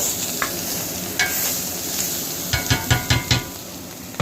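A spoon stirring food in a metal pot, knocking against its side: a few single clicks, then about six quick ringing knocks past the middle. A steady hiss of cooking runs underneath.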